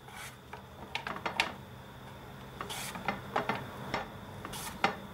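Potato being sliced thin on a mandoline slicer: the hand guard, spiked into the potato, pushed across the blade in short scraping strokes, about one a second, with a quick cluster of strokes about a second in.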